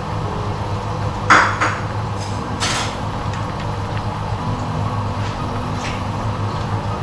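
Cookware clattering at the stove: a couple of sharp knocks about a second in and a ringing metallic clink near three seconds, with a few lighter taps later, over a steady low hum.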